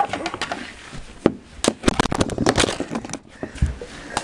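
Knee hockey play on a hard floor: mini hockey sticks clacking against the floor in quick, irregular strikes, with a dull low thump a little before the end.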